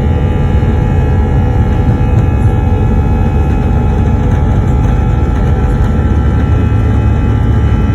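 Airplane engines running at high power during takeoff: a loud, steady low rumble with a steady whine of several tones over it.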